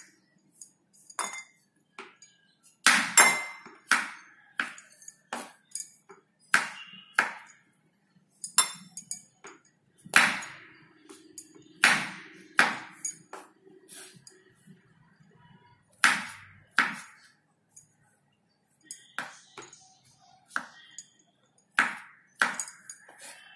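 Kitchen knife slicing through white button mushrooms and knocking on a wooden cutting board: sharp, irregular knocks, often in quick pairs, every second or two.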